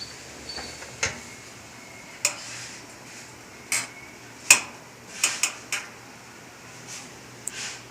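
Sharp metallic clinks and knocks at uneven intervals, about eight of them, over a faint low steady hum.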